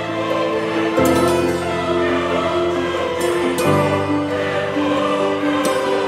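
Background music with sustained, choir-like voices holding long chords; the chord changes about a second in and again near four seconds.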